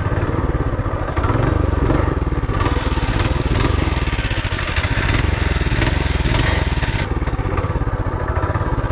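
Trailmaster MB200 mini bike's 196cc single-cylinder four-stroke engine running steadily, its governor-limiting screw removed for a higher governor setting.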